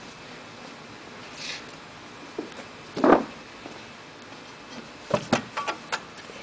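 Hands working the sheet feeder of a Toko 4750 offset press, with the press not running. There is a soft paper swish, then a dull knock about three seconds in, which is the loudest sound, and a quick run of about six sharp metal clicks near the end.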